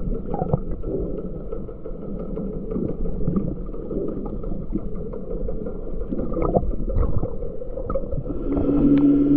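Muffled underwater ambience picked up by a camera held below the surface: a steady low rush of water with scattered small clicks and crackles. Near the end a steady low hum joins in.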